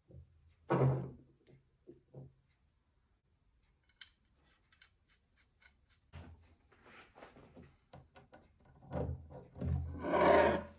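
Handling of a chrome cymbal-stand boom arm and its metal tilter joint: a knock about a second in and a few light clicks, then scraping and rubbing, loudest near the end, as the boom shaft is turned in the joint to line up the split-pin holes.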